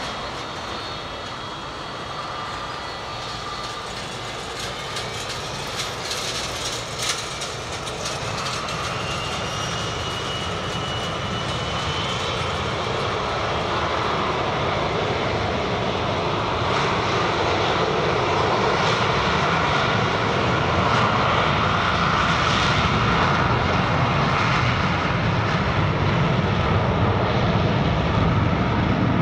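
Boeing 727-200's three Pratt & Whitney JT8D turbofan engines running, with a rising whine in the middle and a roar that grows steadily louder as the jet moves.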